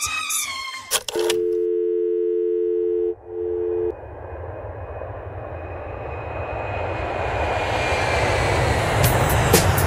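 Telephone dial tone, two steady tones sounding together for about two seconds, cut briefly and back for half a second. Then a whooshing noise swells and rises for several seconds into the first beats of the next song.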